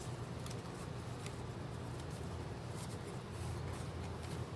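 Faint rustling and a few light scattered ticks, the sound of cards being handled, over a steady low room hum.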